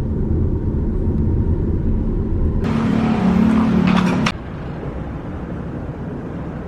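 Steady low rumble of a car moving, heard from inside the cabin. Midway a louder stretch of about a second and a half, with hiss and a low two-note drone, cuts off abruptly, leaving a quieter rumble.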